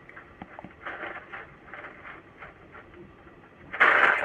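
Coiled heating-element wire being handled and stretched: faint metallic rustling and light clicks of the spring coil, then a louder scraping rattle of about half a second near the end.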